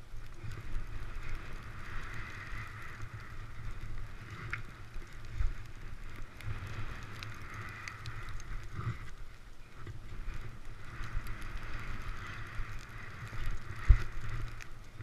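Skis sliding and scraping over snow in a steady, shifting hiss, with wind rumbling on the microphone. There are a couple of sharp thumps, one about five seconds in and one near the end.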